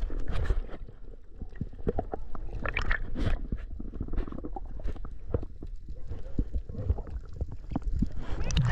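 Underwater sound picked up through an action camera's waterproof housing: a muffled low rumble of moving water with scattered clicks and knocks, and a louder rush near the end.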